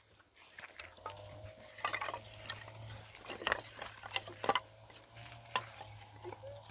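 Dry sticks and twigs being handled and stacked, giving irregular light clicks and knocks of wood with some crackly rustling.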